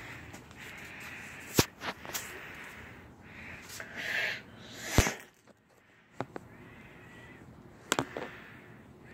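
Handling noise from a phone held close and moved about: rustling with several sharp clicks and knocks, the loudest about five seconds in.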